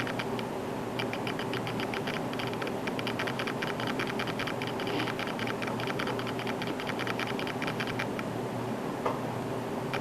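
Rapid, irregular clicking and ticking, several clicks a second, over a steady low hum.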